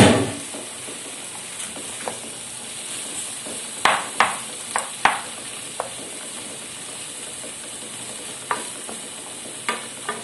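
Diced onion, red pepper and tomato frying in a non-stick pan over medium-low heat, a steady soft sizzle. A wooden spoon stirs and knocks against the pan several times from about four seconds in.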